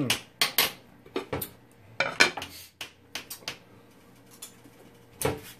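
A string of sharp ceramic clinks and clacks: a white soup spoon knocking against a ceramic clay pot of soup, and the pot's ceramic lid being set on.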